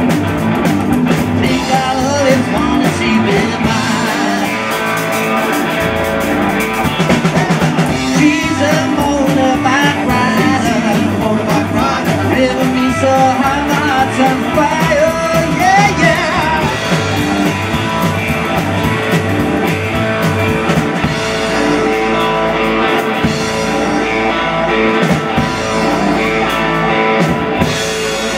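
Live rockabilly band playing: hollow-body electric guitar and upright double bass with a drum beat, and a sung vocal through the middle.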